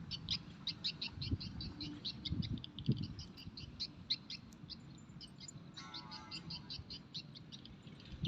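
Small birds chirping rapidly and continuously, many short high chirps a second, with soft low thuds underneath.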